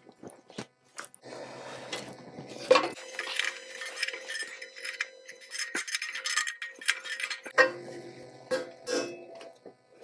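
Wrench clinking and scraping against the muffler mounting bolts of a Kawasaki FR691V mower engine as they are turned, in a run of irregular sharp metallic clicks.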